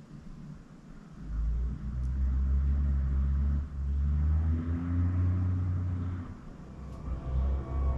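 A deep low rumble that sets in abruptly about a second in, with a faint hum above it that bends up and down in pitch. It dips briefly twice and eases off near the end.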